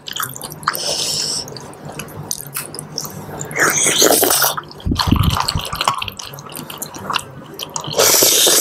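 Close-miked wet eating sounds from a bowl of saucy seblak noodles: irregular chewing and sucking noises, then a loud, sustained noodle slurp near the end.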